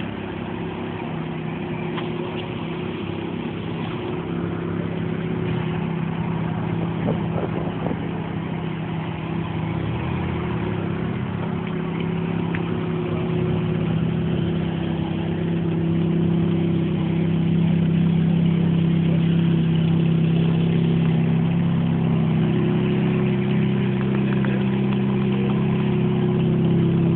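Ferrari F430's V8 engine running at a steady pitch, growing gradually louder and then holding level.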